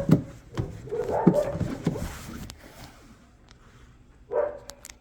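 A dog barking in short single barks: a couple in the first second or so, then a lull, then another bark near the end.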